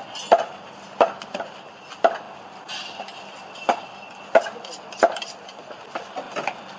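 Cleaver chopping meat and bone on a butcher's table: sharp chops, irregularly spaced, about one or two a second.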